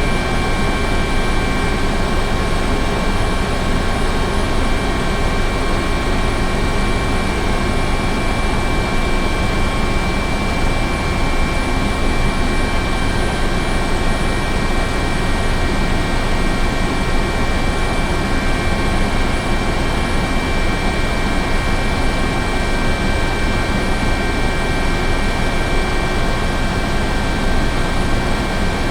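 Helicopter running steadily: a dense, even rush of engine and rotor noise with steady high turbine whine tones on top, not changing in pitch or level.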